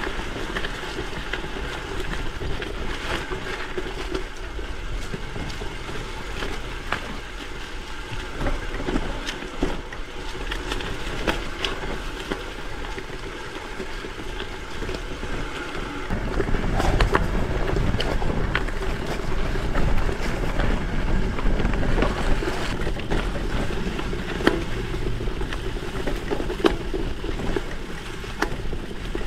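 Gravel bike rolling over an unpaved trail on wide 650×47c WTB Byway tyres, with frequent small clicks and knocks from the bike and wind on the microphone. The noise gets louder and deeper a little past halfway through.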